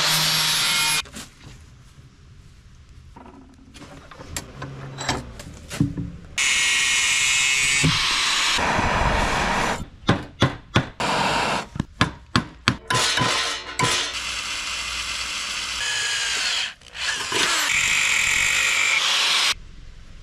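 Angle grinder running on sheet steel in long runs, broken by a row of about eight sharp ball-peen hammer strikes on a steel rod held in a vise about halfway through; another long power-tool run follows near the end.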